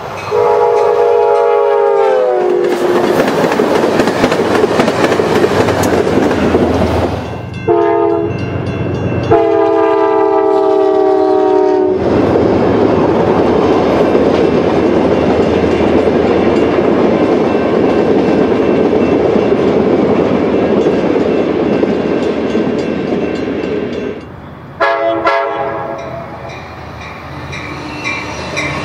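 Amtrak diesel passenger trains passing at speed. A locomotive's chord horn sounds during the first two seconds and drops in pitch as it goes by, more horn blasts come from about 8 to 12 seconds and again near 25 seconds, and in between there is the steady rolling noise of the passenger cars running past on the rails.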